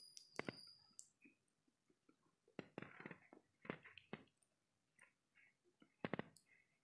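Faint handling knocks and clicks from a paper-covered cardboard diya stand being lifted, held over clay lamps and set back down on a table, with a small cluster of knocks about six seconds in as it is put down.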